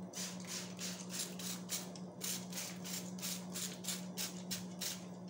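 Hand trigger spray bottle squirting alcohol in quick repeated hissing sprays, about four a second with a brief pause about two seconds in, misted over freshly poured soap to knock down its surface foam.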